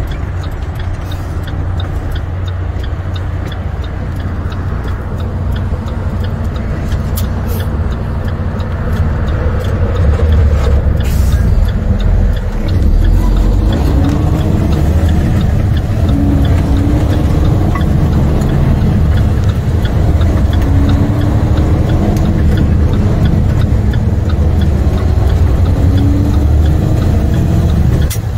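International semi-tractor's MaxxForce diesel engine heard from inside the cab as the truck pulls away and accelerates. The engine gets louder about a third of the way in, with a brief dip partway through.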